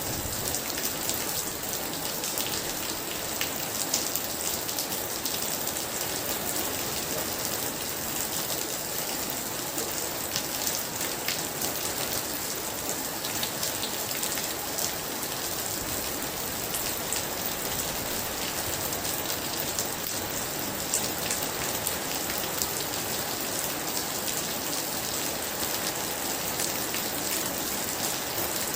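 Very heavy rain pouring steadily, with many sharp ticks of drops striking close by.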